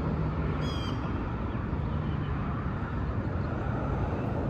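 Steady outdoor background of road-traffic rumble with a faint low hum. A bird chirps briefly about half a second in.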